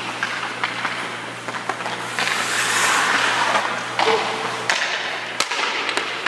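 Hockey skate blades scraping across rink ice in a long hiss about two seconds in, with several sharp clacks before and after and a steady low hum underneath.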